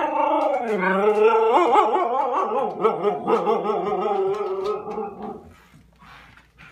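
Husky howling in one long, warbling 'talking' call, its pitch wavering up and down, breaking off about five and a half seconds in; the excited vocalising of a husky that expects a car ride.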